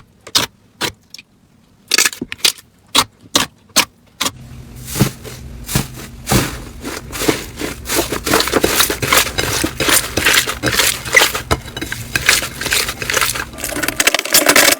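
Slime being handled close to the microphone: a series of sharp separate clicks and pops, about two or three a second, then from about four seconds in a dense, continuous crackling that runs on.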